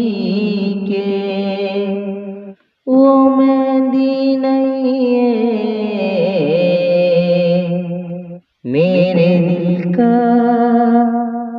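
A singer holding long, drawn-out notes of a Hindi song, with wavering ornamented turns, breaking off briefly twice.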